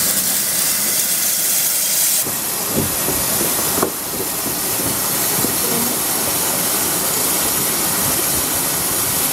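Hunslet Austerity 0-6-0 saddle-tank steam locomotive standing with steam hissing steadily. The hiss drops in level about two seconds in and again about four seconds in.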